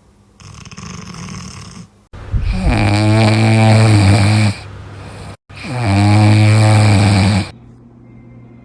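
Puppy snoring: a softer breath about half a second in, then two long, loud, pitched snores of about two seconds each.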